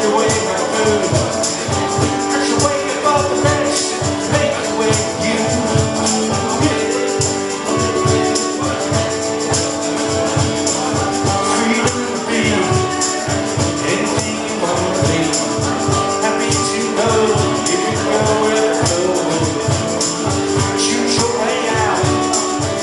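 Live rock band playing with no lead vocal: held instrumental notes over a steady drum beat.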